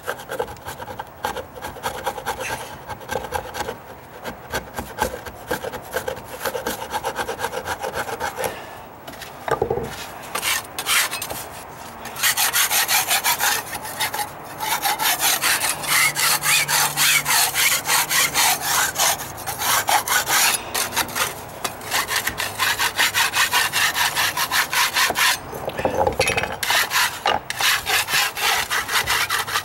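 Hand rasp filing a weathered wooden deck stair tread in rapid back-and-forth strokes, shaving down rough, raised spots in the wood. The strokes are lighter at first, then grow louder and steadier about twelve seconds in.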